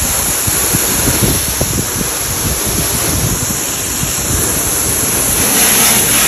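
Water spraying steadily from a hose spray attachment onto a pickup truck's wet painted metal body, with wind buffeting the microphone.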